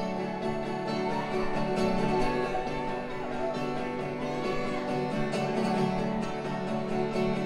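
Live acoustic band music: strummed acoustic guitar with other string instruments in a folk, bluegrass-like style.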